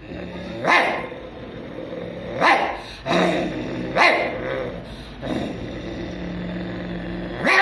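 A man's vocal mimicry of two dogs fighting: a steady low growl broken by four sharp barks, about one every second and a half.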